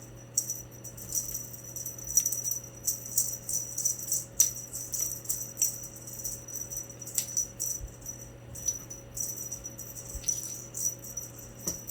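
Cat teaser wand toy being shaken and jiggled, a high-pitched rapid rattle that comes and goes in stretches, over a steady low hum.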